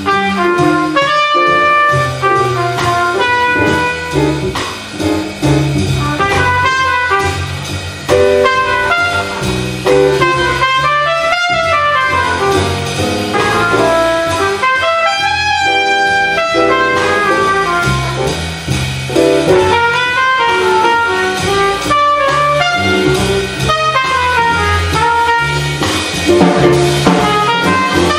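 Jazz trumpet solo over plucked upright bass and drum kit, played live by a quintet.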